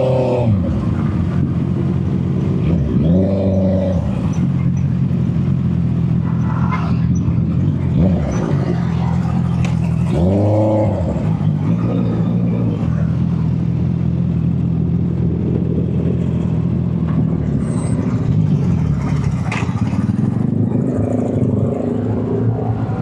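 Honda CB650R's inline-four engine running steadily. Twice, about three seconds and ten seconds in, the revs rise and fall quickly.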